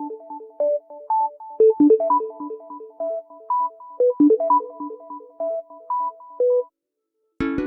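Samsung Galaxy stock ringtone: a looping synth electric-piano melody of short, repeated bell-like notes, which stops about 6.7 seconds in. After a brief silence, the next ringtone starts near the end with plucked-string notes.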